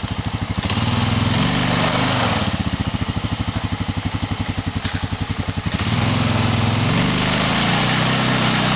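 Arctic Cat 454 ATV engine revving under throttle, dropping about two and a half seconds in to a low, even chugging, then revving up again about six seconds in.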